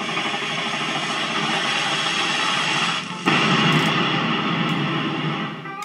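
A loud, steady rushing and hissing noise played back by a model train layout's sound system. It cuts in abruptly, drops out briefly a little past halfway, comes back louder and stops abruptly.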